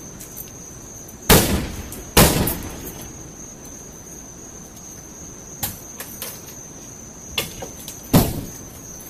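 Axe blows on a Ford Thunderbird's body: three heavy strikes, about a second in, again a second later and once near the end, with a few lighter knocks between.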